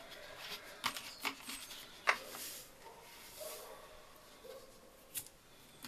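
Faint handling sounds as baking soda is shaken from a small packet into a large aluminium bowl of flour: a few soft clicks and taps, the sharpest about two seconds in.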